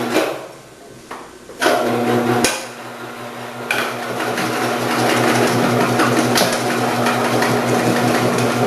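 Omcan HLC 300 commercial vegetable cutter: a clunk near the start, then its electric motor starts about one and a half seconds in and runs with a steady hum. From about four seconds in comes a steady clatter as cucumbers are fed down the chute and sliced by the 8 mm slicing disc.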